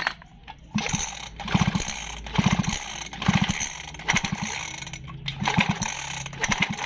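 Recoil starter of a Robin-type 411 grass cutter pulled several times in quick succession, the starter pawls clicking and the engine turning over without firing. This is a spark test with the plug out, and it shows no spark: the ignition coil has failed.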